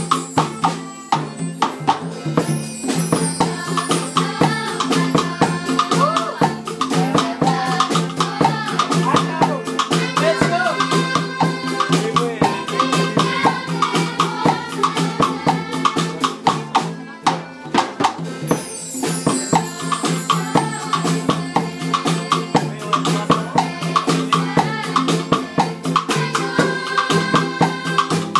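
Music with a steady beat of shakers and drums, and voices singing along in places.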